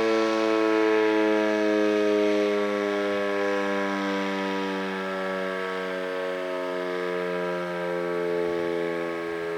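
Federal Signal Model 5 mechanical outdoor warning siren winding down at the end of a short-alert test, its wail sliding slowly lower in pitch and gradually getting quieter as the rotor coasts.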